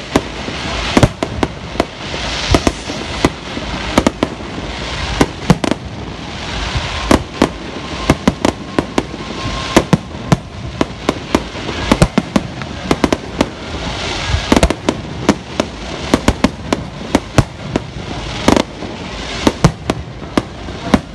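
Aerial fireworks display: shells bursting in quick, irregular succession, several sharp bangs a second, over a continuous hiss.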